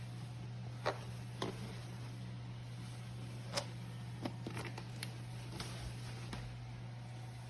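A steady low hum with a handful of light, sharp clicks and taps scattered through it; the clearest come about a second in and about three and a half seconds in.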